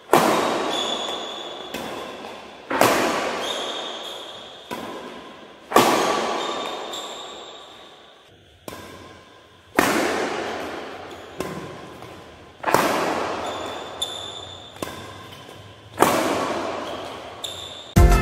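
Badminton racket striking shuttlecocks: six sharp cracks about three seconds apart, each ringing on with a long echo in a large hall, and fainter knocks in between.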